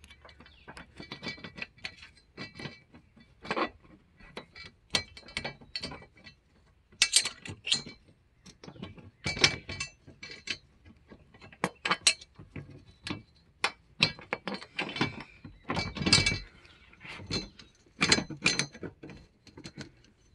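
Irregular metallic clicks, clinks and scrapes of bolts and a small hand tool being worked along a Vantech P3000 rack's metal side rail on a truck bed, as the mounting holes are lined up.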